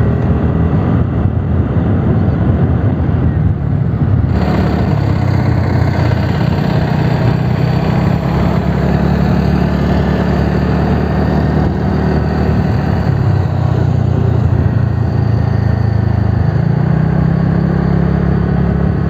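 TVS Ntorq 125 scooter's single-cylinder engine running steadily at low cruising speed, with wind rushing over the microphone. The engine note rises slightly near the end.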